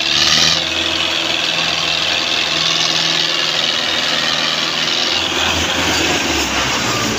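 Belarus 510 tractor's diesel engine running steadily, with a constant hiss over it.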